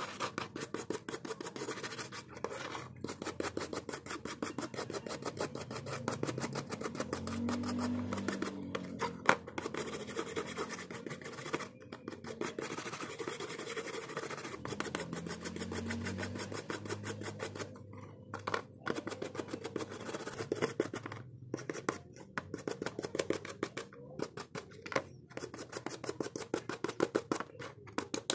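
Rapid, repeated scratching strokes of hand work on a hard part, several strokes a second, with a few short pauses.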